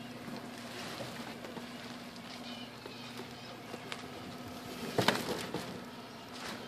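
A plastic cooler of bagged fish set down into a small boat: a few light knocks and one loud thump about five seconds in, over a faint steady hum.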